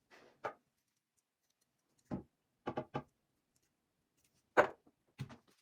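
A few scattered light clicks and taps from small objects being handled and set down. Three come in quick succession about three seconds in, and the loudest comes near the end.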